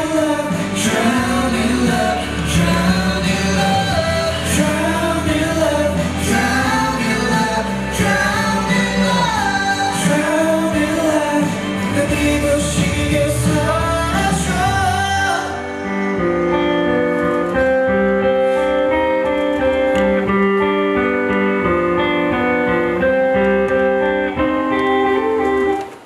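A live band plays a pop ballad while a male vocalist sings over drums and bass. About fifteen seconds in, the drums and bass drop out for a quieter outro of held instrument notes, which stops abruptly at the end.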